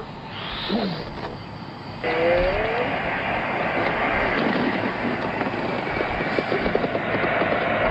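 Stomach growling: a brief gurgle that bends up and down in pitch, then, from about two seconds in, a louder steady rumbling churn of many small gurgles.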